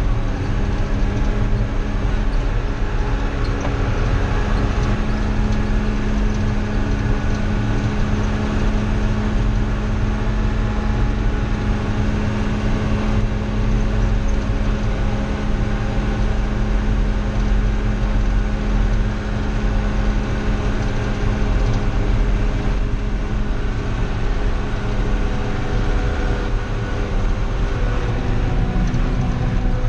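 Old John Deere diesel engine running steadily at road speed, heard from inside the cab, a constant drone with a steady hum and low rumble.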